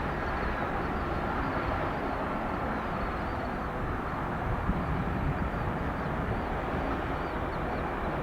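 Steady, even noise of an approaching jet airliner, the Lufthansa Airbus A340-300 on final approach, heard from a distance, with faint high wavering chirps above it.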